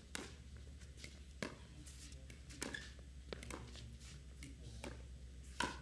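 Pickleball paddles hitting the hollow plastic ball back and forth in a rally at the net: a series of sharp pops, roughly one a second, over a faint low hum.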